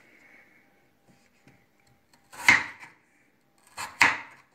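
Wavy-bladed crinkle cutter chopping down through potato onto a wooden cutting board, with two loud chops about a second and a half apart and light scraping before them.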